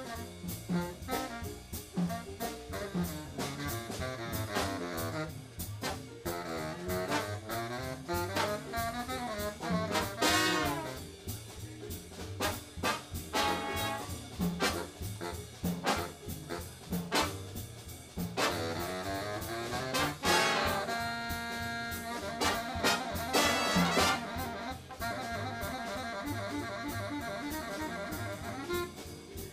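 Jazz big band playing: trumpets and trombones with a saxophone section over a drum kit, swelling into loud full-band passages a third of the way through and again past two-thirds.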